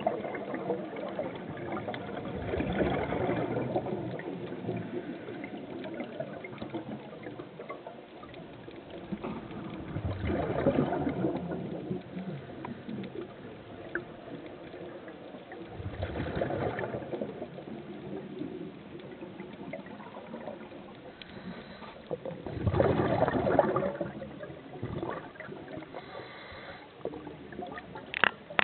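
Scuba diver breathing out through a regulator underwater: gurgling bursts of exhaust bubbles about every six seconds, over a steady underwater hiss between breaths.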